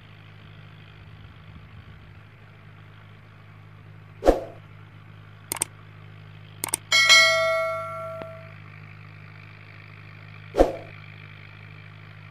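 Subscribe-button animation sound effects: a short hit, two quick clicks, then a bell-like notification ding that rings out for about a second and a half, and another hit near the end. Under them runs a steady low hum.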